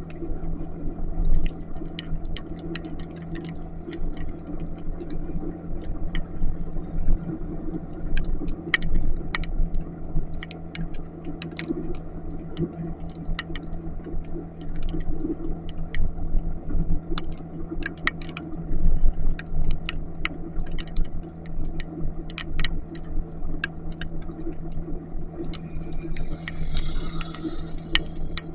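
Motorcycle engine running at a steady cruising pitch under a low wind-and-road rumble, with sharp ticks of raindrops striking the camera throughout. Near the end a brief hiss comes in over it.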